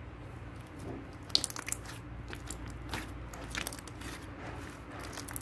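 Slime being squeezed and worked by hand, giving irregular sticky crackling clicks and pops that start about a second in.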